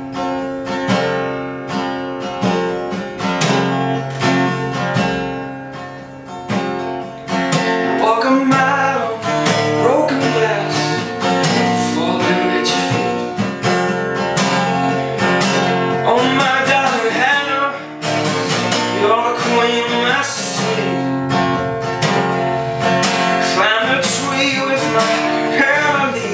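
Acoustic guitar strummed and picked through an instrumental break in a folk song. A wavering, bending melody line rises over the chords from about eight seconds in.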